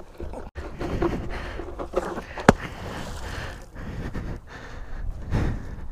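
Footsteps on wet gravel and mud, with an uneven rustle of movement and a single sharp click about two and a half seconds in.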